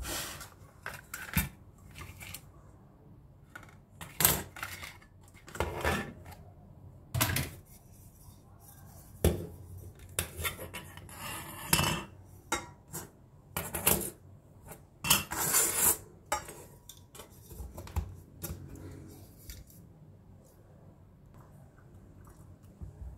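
Plastic vegetable chopper being handled: its blade grids and frame clatter and click against each other and the wooden tabletop in irregular knocks, with a couple of longer, noisier stretches partway through.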